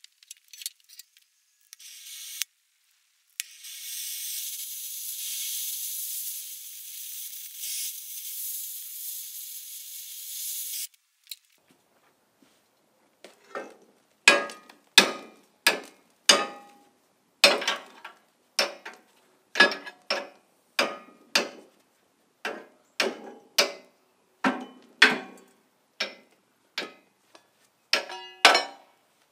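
A steady hiss for about seven seconds, then a run of about twenty sharp metallic strikes, roughly one every three-quarters of a second, each ringing briefly: a steel bar being knocked against the steel frame of a plow.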